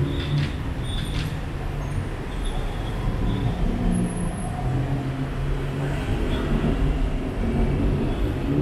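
Busy city road traffic: a steady rumble of vehicle engines close by.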